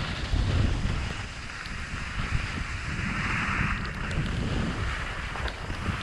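Wind buffeting the microphone during a downhill slide over snow, with the hiss of sliding on the snow swelling about three seconds in.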